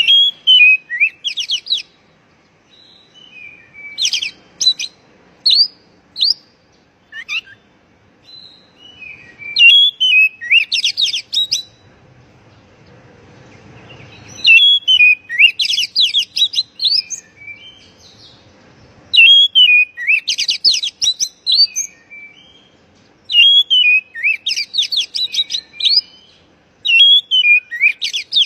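Oriental magpie-robin (kacer) singing: repeated phrases of quick, high chirps and whistled notes, each lasting a second or two, with short pauses between them.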